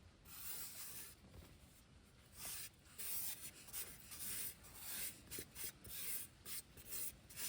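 Repeated short scraping and rustling, one after another with brief gaps, as chicken 65 masala powder is added to a marinade.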